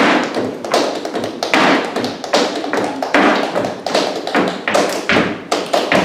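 Flamenco dancer's shoes striking the stage floor in rapid, uneven runs of heel and toe taps and stamps (zapateado footwork).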